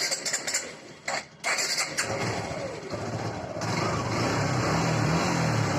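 Suzuki Gixer's 155 cc single-cylinder engine being started: a few short bursts of cranking, then it catches about two seconds in and settles into a steady idle. There is no timing chain rattle, the chain now held tight by the repaired tensioner.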